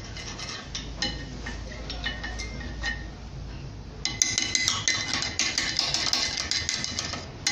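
Screwdriver scraping and tapping on a car's front brake caliper bracket to clear out brake dust. Scattered light metallic clicks at first, then from about four seconds in a louder, continuous metallic scraping.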